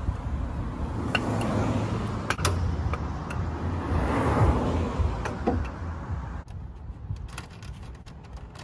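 Chevrolet Trailblazer SS hood being lifted and propped open on a rod: a few sharp metal clicks and knocks, with a louder stretch of movement about four seconds in, over a low steady rumble.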